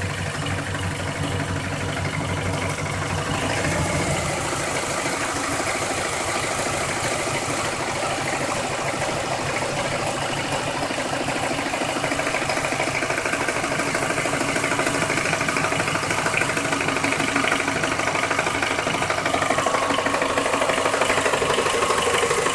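Car engine idling with a rapid, steady ticking from somewhere around the oil pan, a noise that runs the whole time the engine is on; the owner suspects something loose. The sound grows louder in the second half.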